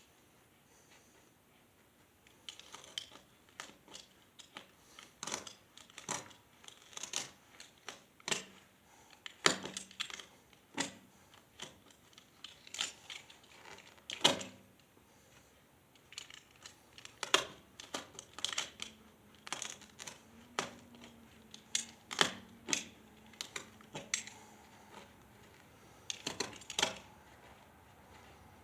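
Irregular sharp clicks and metal clinks from small hardware and hand tools being handled and set down, one after another with short pauses. A few knocks stand out louder than the rest.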